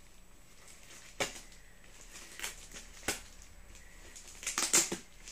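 Plastic bubble wrap being handled and pulled off a boxed object: a few sharp crinkling crackles, then a louder flurry of them near the end.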